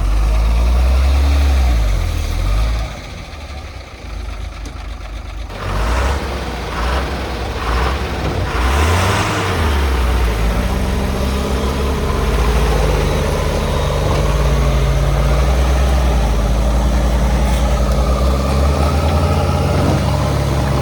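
Heavy diesel engine running under load, its pitch shifting up and down, then settling to a steady note about halfway through. A burst of rushing noise comes around a third of the way in.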